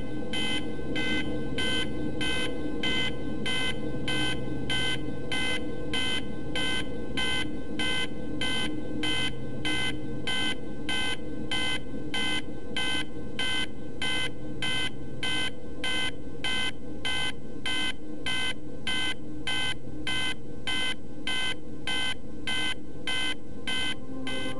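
Electronic beeping, a high steady-pitched beep repeating evenly about twice a second, like an alarm or buzzer, with a faint hum beneath.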